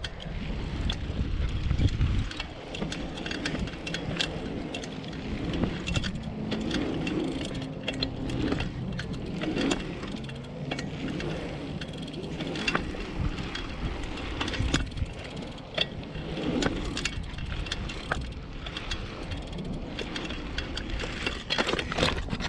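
Bicycle ridden along a rough trail: chain and frame rattling, with many sharp clicks and knocks as it goes over bumps.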